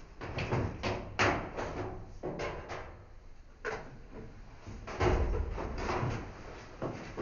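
Rummaging at an office desk: a metal pedestal drawer open and things inside handled and shuffled, in a string of short scrapes, knocks and rustles, with the loudest bout about five seconds in.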